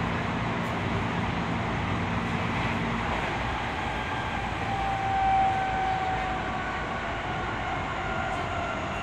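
Toyo Rapid Railway 2000 series electric train heard from inside the car: steady running noise of wheels on rail. A low steady hum fades out about three seconds in, and from about halfway a faint whine from the traction motors slowly falls in pitch as the train slows toward the next station.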